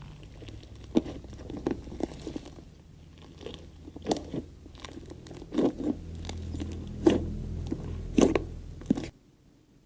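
Slime being squished and poked by hand, giving irregular sharp pops and crackles over a low steady hum, with the sound cutting off abruptly near the end.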